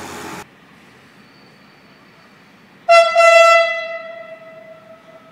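Electric locomotive's horn sounding one loud, steady blast about three seconds in, then dying away over the next two seconds.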